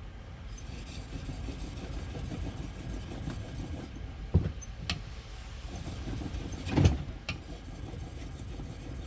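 Steel lathe tool being stroked back and forth across the 3000-grit face of a wet whetstone, a steady soft scraping. Three sharp knocks of the tool or stone come about four and a half, five and seven seconds in, the last the loudest.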